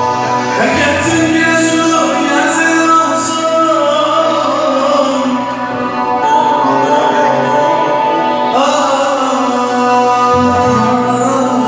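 A Turkish folk song (türkü) being performed: music with a singing voice holding long notes that slide up into each phrase.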